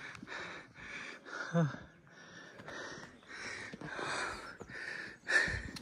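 A hiker breathing hard, about two breaths a second, with a short voiced grunt about one and a half seconds in and a louder breath near the end: out of breath on a steep uphill climb.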